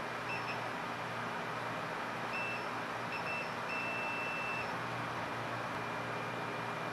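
Hot air rework station blowing with a steady hiss over a low hum. Several short electronic beeps at one pitch come in the first half, the last held for about a second.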